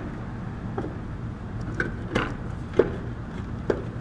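Short clicks and knocks of hands fitting a hard start kit and its wires into an air conditioner condenser's control panel, about five sharp taps spread out over a steady low rumble.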